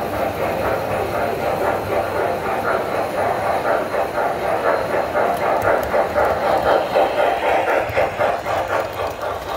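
Standard gauge tinplate toy train, a locomotive hauling freight cars, rolling past on three-rail tubular track with a fast, even metallic clatter of wheels over the rails, loudest about seven seconds in as the cars pass close.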